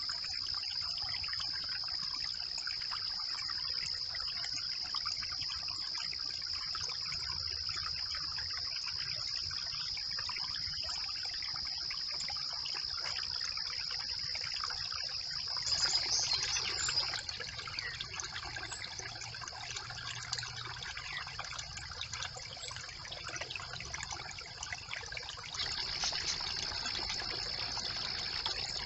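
Brook water trickling and running over a beaver dam, with a steady high-pitched tone above it. It grows briefly louder about halfway through, and the level shifts again near the end.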